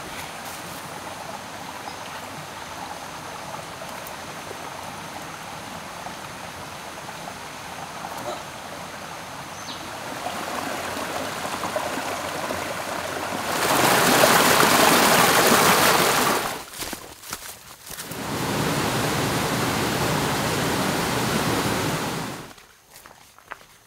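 A forest stream running, a steady rush of water. In the second half the rush grows much louder in two stretches that start and stop abruptly, and near the end it drops away almost to nothing.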